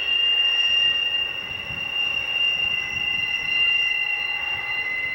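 Freight car wheels squealing against the rail as a long intermodal train rounds a tight curve: several steady high-pitched squeal tones that overlap and shift, the highest holding throughout, over the low rumble of the passing cars.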